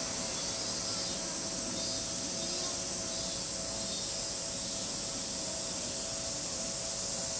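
Steady high-pitched drone of a summer insect chorus, with the faint low running sound of a distant electric train approaching.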